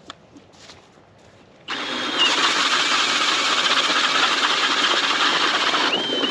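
Cordless drill driving an ice auger through lake ice. It starts up about two seconds in and runs steadily, a high motor whine over the grinding of the bit.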